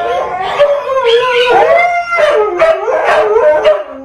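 Husky howling in a run of long, wavering, loud calls, the howling of dogs that think their owner has gone out.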